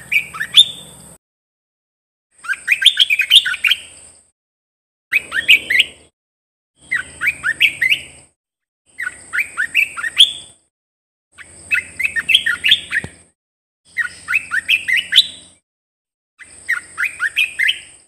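An Olive-winged bulbul singing: about eight short phrases of quick rising notes, each repeated after a gap of roughly a second.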